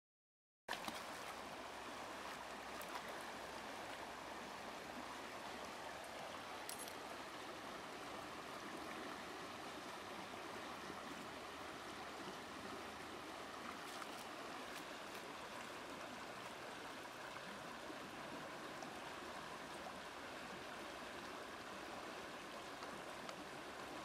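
Shallow stream rippling and running over stones, a steady rush of water.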